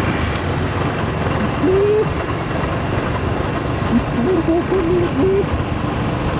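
Yamaha SRX400's single-cylinder engine running under way, mixed with steady road and wind noise. The bike is believed to have a blown transmission and a slipping clutch. Short voice-like pitched sounds come through about a second and a half in and again past the middle.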